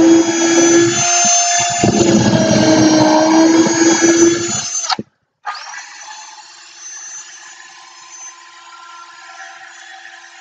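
Cordless drill driving a drill bit down into a 2x4, easing off briefly about a second in; this repeated drilling into wood is meant to straighten a bent bit. It stops at about five seconds, and after a short gap the drill spins freely, much quieter and steady.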